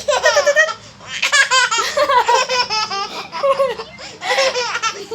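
A small child laughing in several bursts of high-pitched giggling and squealing.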